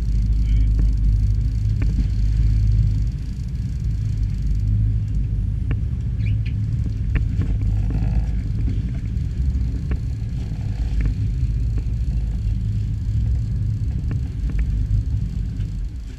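Steady low rumble aboard a small fishing boat at sea, from wind and the boat, with scattered light clicks and knocks.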